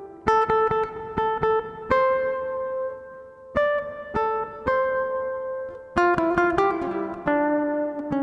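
Background music of an acoustic guitar picking a melody: short runs of plucked notes, some left to ring.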